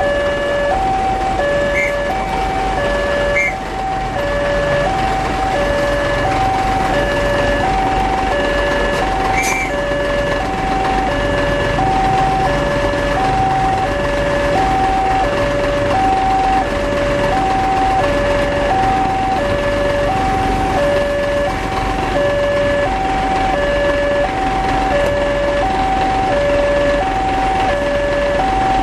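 Railway level-crossing warning alarm sounding a steady electronic two-tone signal, a higher and a lower tone taking turns without a break, which warns that a train is coming while the barriers are down. Waiting vehicles' engines run underneath.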